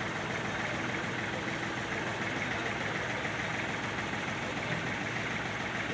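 Kubota D1402 diesel engine idling steadily.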